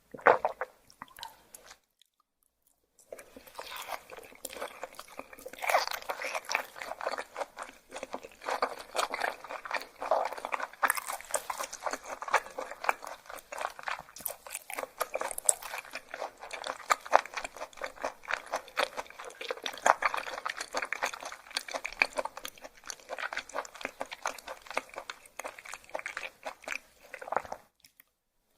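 Close-miked chewing of raw yellowtail sashimi: a dense run of fast, crisp, crunchy clicks of biting and chewing. It follows a brief silence about two seconds in and stops abruptly just before the end.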